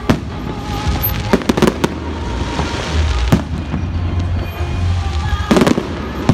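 Fireworks exploding overhead: a bang at the start, a quick run of bangs about a second and a half in, a single bang in the middle, and a dense cluster of bangs near the end.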